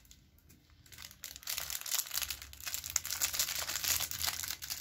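Clear plastic packaging crinkling as it is handled, a dense crackle that starts about a second in and goes on.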